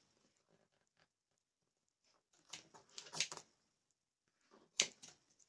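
Handling noises from hands working a leatherette cover around the underside of a bicycle saddle: scattered short rustles and scrapes, a cluster about halfway through and the sharpest one near the end.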